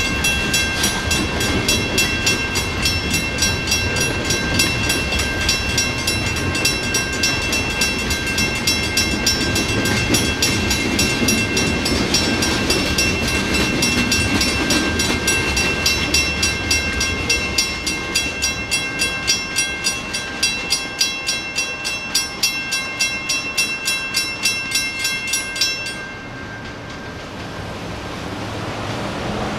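Grade-crossing signal's mechanical bell ringing in rapid, even strokes over the rumble and clatter of tank cars rolling through the crossing. The rumble fades as the train clears. Near the end the bell stops abruptly as the gates begin to rise, leaving street traffic noise.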